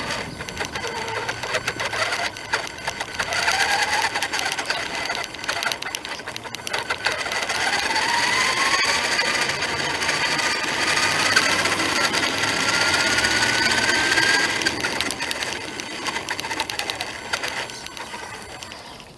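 Electric motor of a radio-controlled car whining under a dense rattle of fine clicks as the car is driven. The whine climbs in pitch as the car speeds up, from about a third of the way in until shortly after the middle, then falls away near the end.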